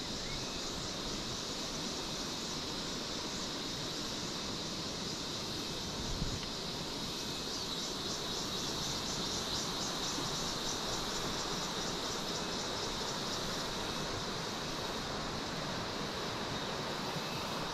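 Insects trilling steadily, a high pulsing chorus that grows stronger in the middle, over a constant rushing noise of river water.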